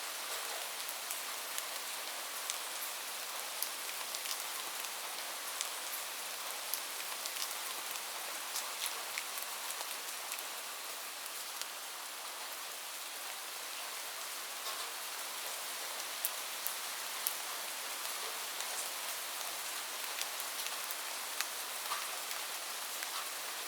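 Light rain falling steadily, an even hiss with many scattered drop ticks and patters.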